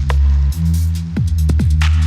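Electronic background music with a heavy bass line and punchy kick drums on a steady beat.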